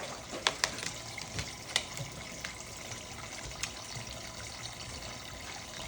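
Water trickling steadily in a small toy sink, with a few sharp clicks and small splashes, mostly in the first few seconds, as a cockatoo plays in it.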